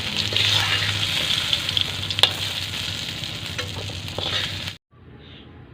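Potatoes sizzling in hot mustard oil in a kadai, with a spatula scraping and clicking against the pan as they are stirred. Near the end the sizzle cuts off abruptly, leaving quiet with a few faint high calls.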